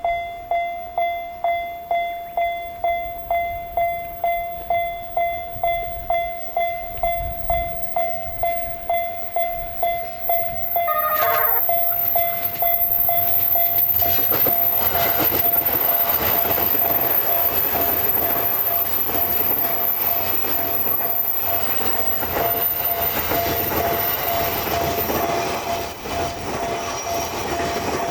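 Japanese level-crossing warning bell ringing steadily, about two strikes a second. About eleven seconds in a train sounds a short falling horn note, then an electric commuter train on the JR Sobu Line runs over the crossing, its loud running noise covering the bell, which keeps ringing underneath.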